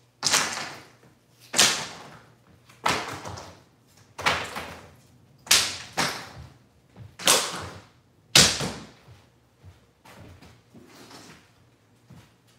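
Wooden carpet tack strips tossed onto a bare wood subfloor, landing one after another with a sharp clatter about every second and a half, eight times, then a few fainter knocks near the end.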